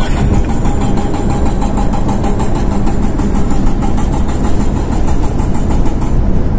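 Steady rumble of a car's engine and road noise, heard from inside the moving car.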